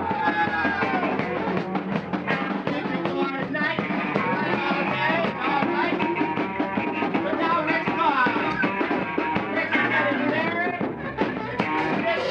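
Rock band playing a song with a lead vocal over steadily hit drums.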